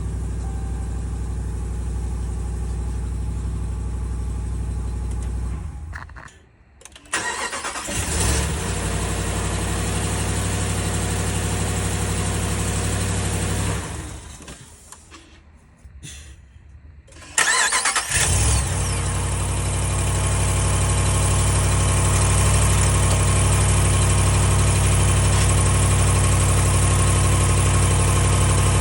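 The 5.7-litre Hemi V8 of a 2020 Ram 1500 idles, then shuts off. A moment later it is cranked by a newly replaced starter and catches at once with a brief rev flare, then settles to idle. It shuts off again about 14 seconds in and restarts the same way about three seconds later, idling steadily to the end. The quick starts show the new starter working.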